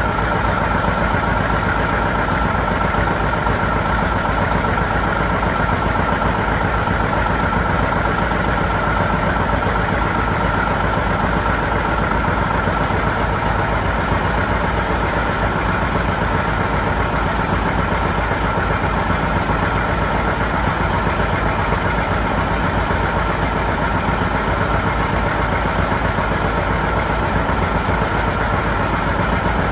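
John Deere 720 two-cylinder diesel tractor engine running at a steady speed, driving a sawmill by belt. A steady high whine sits over the even engine beat.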